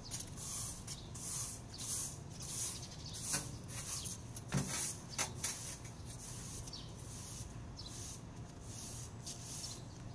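Sweeping on a tiled floor: irregular swishing strokes, about one or two a second, thinning out in the second half, with a couple of soft knocks around the middle.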